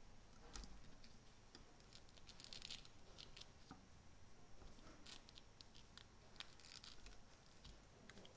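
Near silence with a few faint, short scratchy hisses as a cotton swab is worked against a hot soldering iron tip on a circuit-board pad, wiping away molten solder.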